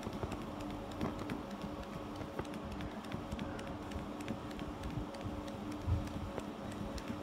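CNC laser cutting machine running as it cuts leather: a steady hum with light, irregular ticking as the head moves.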